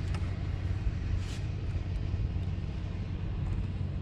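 Small boat engine running steadily, a low rumble.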